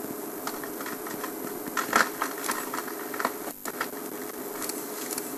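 Wood cracking and snapping in short bursts, most of them about two seconds in, as an elephant pushes over a small African rain tree. Underneath runs the steady hum of an idling engine.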